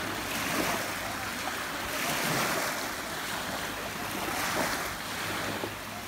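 Small waves lapping at a sandy shoreline, swelling and easing every second or two, with wind noise on the microphone.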